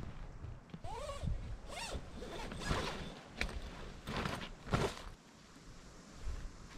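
A zipper pulled in several short strokes, such as a tent door zipper.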